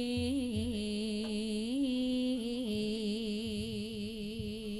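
Javanese jaranan music: one melodic line held in long wavering notes with a wide vibrato, stepping to a new pitch a few times, with little percussion under it.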